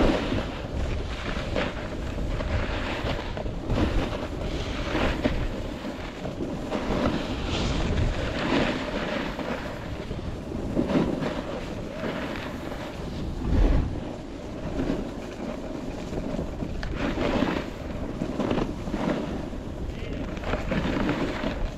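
Skis sliding and scraping over packed snow on a downhill run, with wind rushing over the microphone; the noise swells and fades every second or two.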